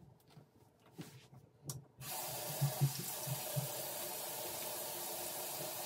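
Water running steadily, like a tap left on at a bathroom sink, starting suddenly about two seconds in, with a few soft low thumps just after it starts.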